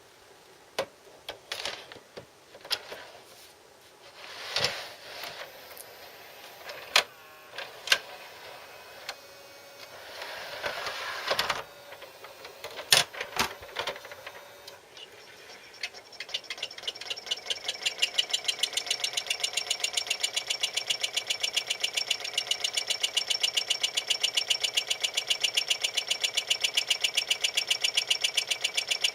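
RCA SKT-400 CED videodisc player mechanism: scattered clunks and clicks for about fifteen seconds, then a rapid, regular ticking sets in, grows louder and keeps on steadily. The owner calls it quite a lot of noise and is unsure whether it is normal for the player.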